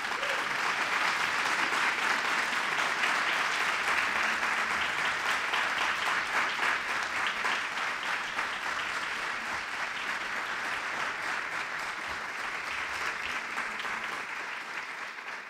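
Audience applauding, a steady mass of many hands clapping that slowly thins out near the end.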